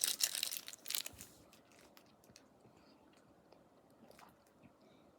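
Plastic fruit snack pouch crinkling for about the first second, then faint scattered clicks.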